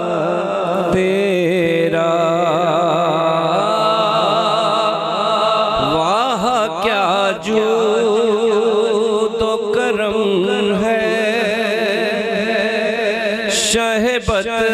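Devotional naat singing: a voice draws out a wordless, ornamented line with wide vibrato over a steady, held accompaniment, with a sweeping rise in pitch about halfway through.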